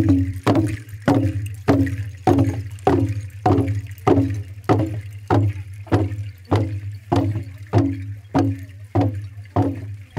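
Kundu hourglass hand drums beaten together in a steady, even beat, a little under two strokes a second, each stroke ringing briefly.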